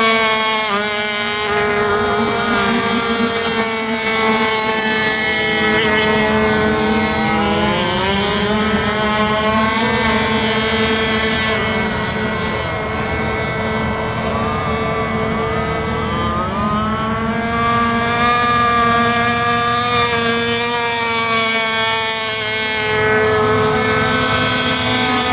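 Radio-controlled racing boats running at speed: a high, steady motor whine that rises and falls in pitch as the boats turn and pass, with a second boat's whine at a different pitch crossing it at times.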